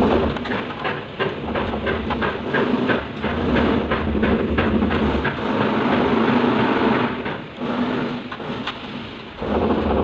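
Irregular clicks and rustling from a screwdriver and stiff electrical cable being worked into the terminal block of an instant electric water heater, over a steady noisy background with a low rumble.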